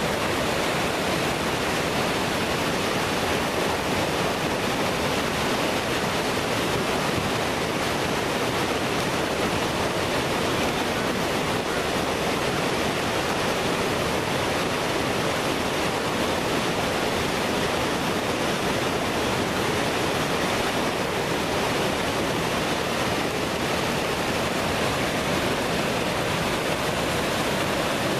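Class III river rapids: whitewater rushing over rocks in a steady, unbroken rush.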